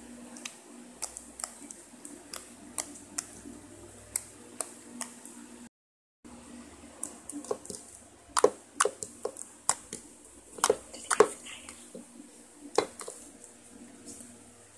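Slime being squeezed and poked, making irregular sharp little clicks and pops, denser and louder in the second half, with a brief cut to dead silence about six seconds in.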